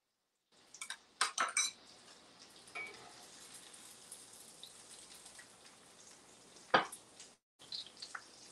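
Metal kitchen utensils clinking against pans: a few sharp clinks about a second in and one louder clink near the end, over a faint steady hiss. The sound cuts out completely for a moment near the end, as the call's audio drops.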